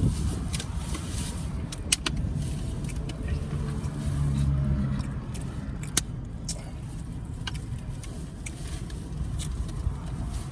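Scattered sharp clicks and taps of a utensil and takeout container as a loaded baked potato is eaten, over a steady low rumble.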